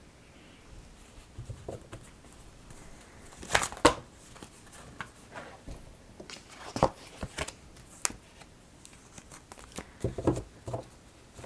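Oracle cards being handled and laid down on a table: irregular taps and rustles, the loudest two close together about three and a half seconds in.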